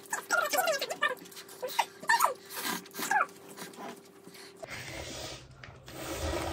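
A dog whining and whimpering in short, high cries that rise and fall in pitch, over the first three seconds or so. After a sudden cut a little past the middle, only a steady hiss remains.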